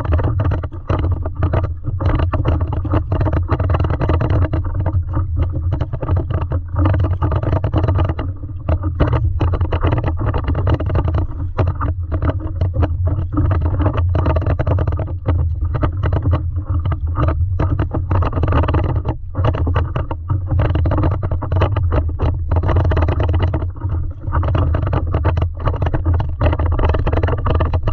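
Wind buffeting the microphone as a steady low rumble, with water slapping and splashing against a stand-up paddleboard in many small irregular knocks.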